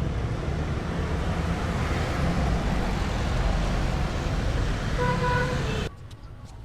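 Steady road and traffic noise, with a vehicle horn tooting briefly about five seconds in; the noise then drops off suddenly near the end.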